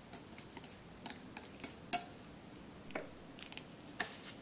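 Light, scattered clicks and taps of chopsticks and dishes in the kitchen, one clink about two seconds in ringing briefly, and a knock near the end.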